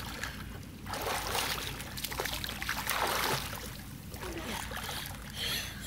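Pool water splashing and sloshing as a child swims through it, swelling about a second in and again around three seconds in.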